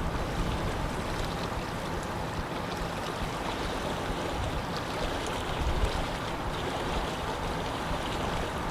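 Wind blowing over a lake, with small waves lapping at the water's edge: a steady rush of wind and water with no distinct events.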